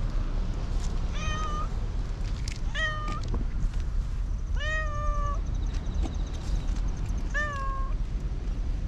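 Cat meowing four times, one or two seconds apart, the third meow the longest, over a steady low rumble.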